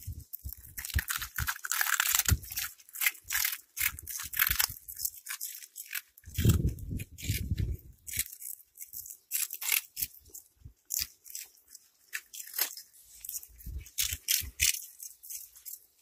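Cats crunching puffed corn snack balls: many quick, irregular crackling crunches. A low muffled rumble comes in about six seconds in and lasts a second or two.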